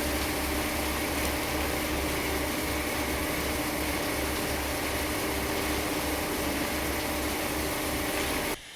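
A machine's engine running steadily, with an even low throb and a constant hum, cutting off abruptly near the end.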